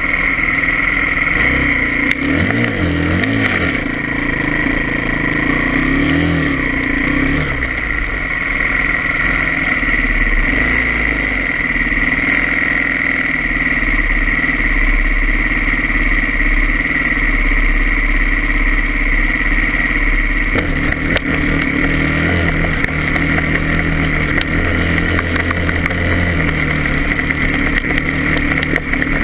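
2013 Husqvarna TE310R dirt bike engine running under way on a trail, the revs rising and falling over the first several seconds, then steadier. The note changes about twenty seconds in, with deeper tones coming through.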